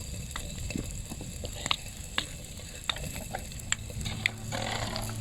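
Soup heating in a pot on a mini camp stove, sizzling, with scattered light clicks of a spoon stirring it.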